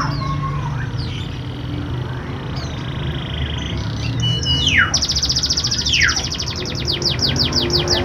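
Domestic canary singing: steep downward-sweeping whistles, a fast buzzy trill, then a loud rolling trill about five seconds in that slows as it goes, over a steady low hum. It is a full, varied male song of the kind played to prompt canaries that are reluctant to sing.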